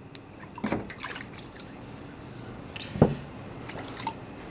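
Water dripping and a few light knocks as a wet Suehiro 320-grit whetstone is set into its holder over a water trough. The loudest knock comes about three seconds in.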